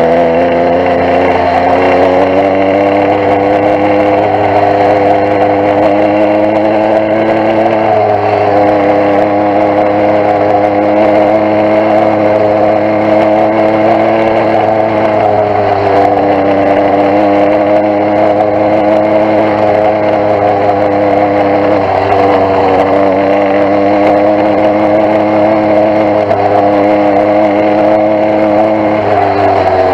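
Small bicycle-mounted engine of a motorised bike running steadily under way, its pitch rising and dipping a little as the throttle and speed change. The engine has a fouled spark plug and is down on torque.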